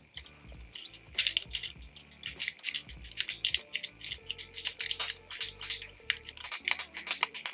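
Dense irregular crackling of adhesive tape and glue tearing loose as the smartwatch battery is pried and peeled off its mount, starting about a second in. Faint background music underneath.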